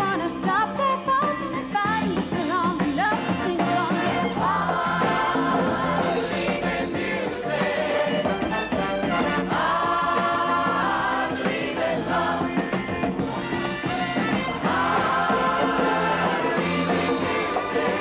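Music: several voices singing together over a band, with long held notes about five, ten and fifteen seconds in.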